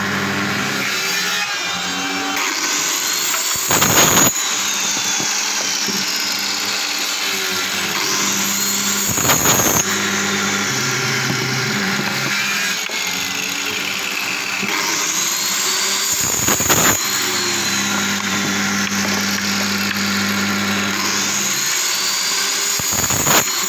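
Hand-held electric circular saw running steadily, with four short, louder surges about every six seconds as the blade is pushed through a wooden block, cutting a row of kerfs for a coupling joint.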